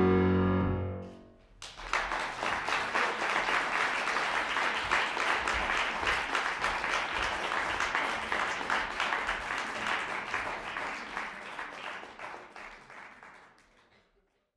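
A grand piano's final chord rings and dies away over about a second. Then an audience applauds steadily, the clapping thinning and fading out near the end.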